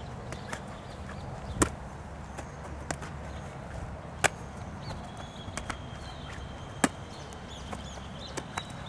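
Football smacking into a goalkeeper's gloves as he catches low balls: three sharp hits about two and a half seconds apart, with a few lighter taps between, over a steady low background noise.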